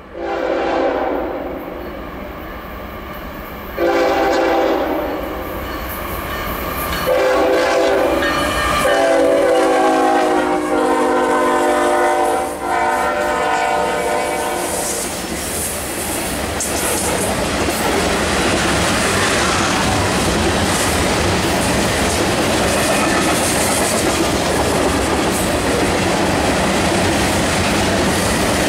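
Freight locomotive's multi-chime air horn sounding a series of blasts as the train approaches, the last held for several seconds. The horn is followed by the steady rumble and clatter of freight cars, covered hoppers and tank cars, rolling past close by.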